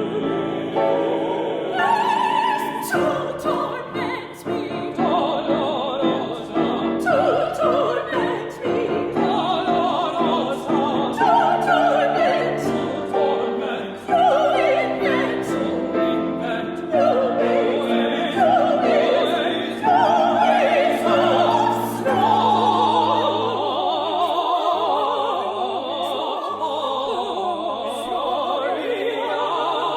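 A classical vocal quartet of soprano, mezzo-soprano, tenor and baritone singing in operatic style with wide vibrato, over piano accompaniment.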